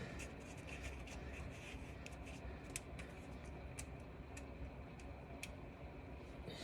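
Faint scattered clicks and ticks of small metal parts and hand tools being handled while a car's starter solenoid wires are connected, over a steady low hum.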